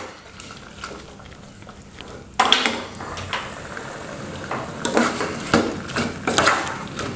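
Metal spoon stirring in an aluminium saucepan, scraping and clinking against the pot as red curry paste is worked into braised pork cartilage. The stirring comes in suddenly about two and a half seconds in, after a quieter start, with several sharper clinks in the last couple of seconds.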